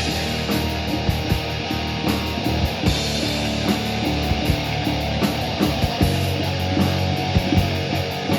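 A live rock band playing loud, with distorted electric guitars and drums.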